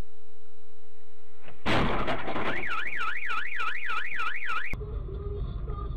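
A sudden loud burst of noise, then an electronic alarm tone warbling rapidly up and down, about three swoops a second, which cuts off abruptly after about two seconds. Low road noise follows.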